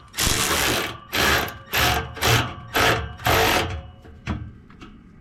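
Ratchet wrench clicking in about six quick back-and-forth strokes as a fastener is turned, then a few light clicks near the end.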